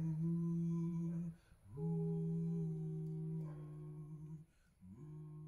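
A voice humming long, steady low notes in three phrases, each sliding up into the note, with short breaks about a second and a half in and near the end.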